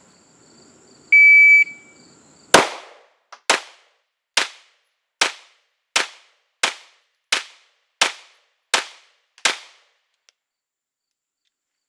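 A shot timer's start beep, held for about half a second, then ten 9mm shots from a CZ P10 C pistol fired in steady rapid succession, a little more than one per second, over about seven seconds.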